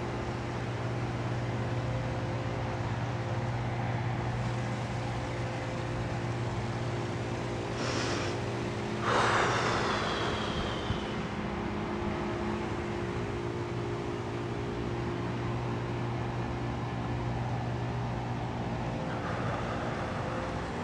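A steady low mechanical hum with a few held tones, and a brief louder rushing sound with a falling high whine about nine seconds in.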